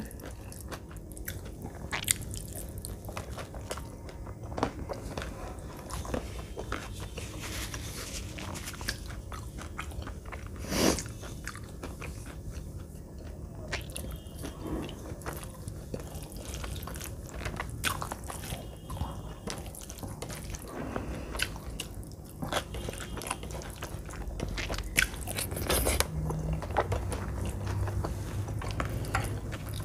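Close-miked eating: chewing and biting mouthfuls of rice and curry eaten by hand, with wet mouth clicks and occasional crunches. The sound comes in many short bursts, with a louder one about eleven seconds in.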